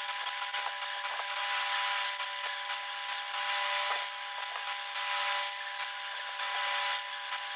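Benchtop drill press running with a steady motor whine, its bit cutting into a metal bearing flange with a continuous high grinding hiss. The cutting noise dips briefly about four seconds in and again near the end as the feed pressure changes.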